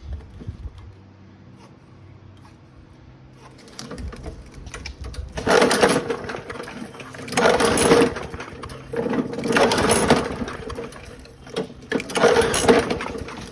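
Four pulls on the recoil starter of a 158cc Briggs & Stratton lawnmower engine. Each is about a second of cranking, and the engine does not catch. The owner then puts the failure to fire down to the spark plug.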